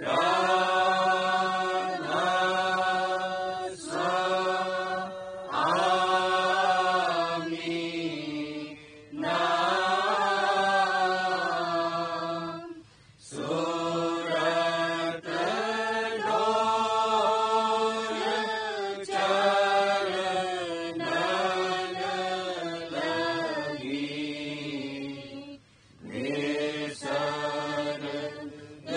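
Devotional verses (shabd path) chanted in sung phrases of a few seconds with short breaks between them, over a steady low drone.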